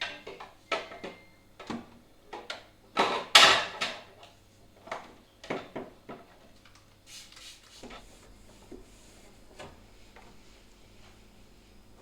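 Containers, shelves and drawers being handled in a fridge: a run of knocks and clatters, with a louder sliding sound about three seconds in, then fewer and fainter taps.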